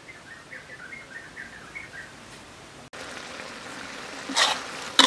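A small bird twittering over faint background for about two seconds; then, about three seconds in, a wok of pork intestines sizzling over a wood fire, with two loud scraping strokes of stirring near the end.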